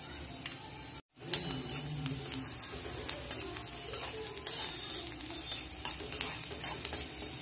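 Chopped garlic and green chillies sizzling in hot oil in a kadai, with a metal spoon scraping and clinking against the pan as they are stirred. The sound cuts out briefly about a second in, and the stirring scrapes come from then on.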